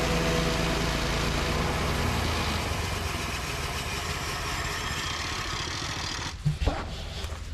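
Small gasoline engine running steadily at idle, with music fading out over the first couple of seconds and a short knock about six and a half seconds in.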